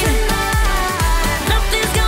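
Background electronic pop music with a steady kick-drum beat.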